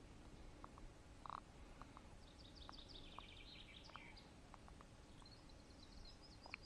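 Near silence with faint birdsong: a small bird gives two runs of quick, short high chirps, over a few soft clicks.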